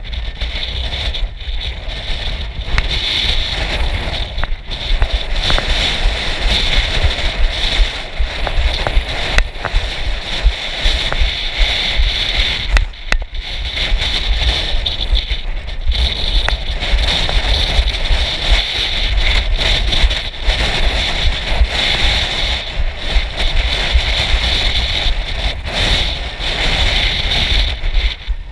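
Wind buffeting a handheld camera's microphone: a steady, heavy low rumble that dips briefly now and then, over the hiss of ocean surf breaking on rocks.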